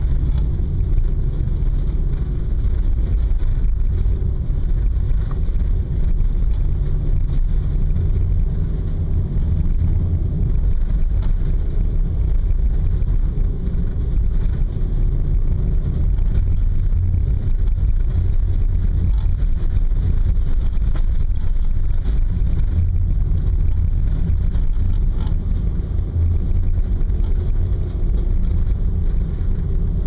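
A Honda Fit driving through deep snow ruts, heard from inside the cabin: a steady low rumble of engine and tyres.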